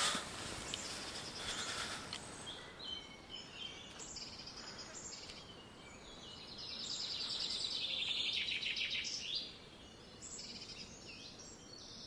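Birds chirping with many short high calls, and a longer falling trill about seven to nine seconds in, over faint outdoor background noise.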